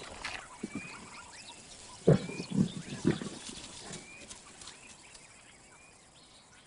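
Lion growling in three short, gruff bursts about two seconds in.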